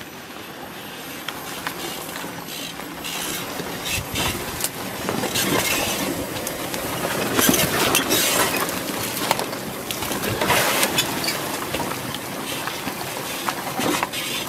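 Off-road tyres of a Chevrolet Colorado ZH2 fuel-cell pickup crunching and crackling over rocks and gravel as the truck crawls slowly, growing louder over the first few seconds.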